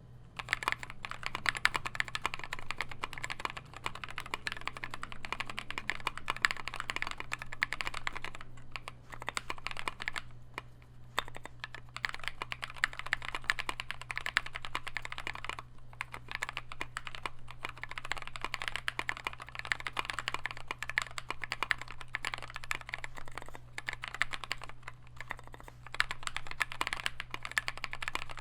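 Continuous fast typing on a custom 96%-layout mechanical keyboard with lubed NovelKey Cream linear switches, a brass plate and an aluminium case, with modded NovelKey stabilizers; the keystrokes come in runs broken by short pauses, over a steady low hum.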